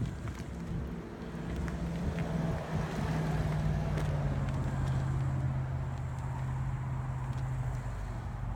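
Four-wheel electric mobility scooter driving under throttle, its drive motor giving a steady hum over a low rumble. The hum drops a little in pitch about three seconds in and stops shortly before the end.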